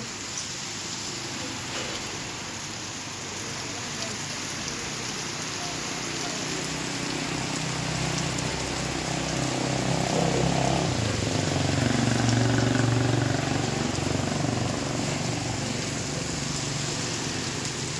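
Heavy rain falling steadily on a flooded road and wet ground, an even hiss. A motor vehicle's engine passes through the middle, rising about seven seconds in, loudest around twelve seconds, then fading.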